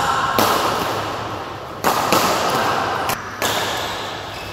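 Badminton rackets striking a shuttlecock during a rally: three sharp cracks about a second and a half apart, each ringing on in the hall's echo.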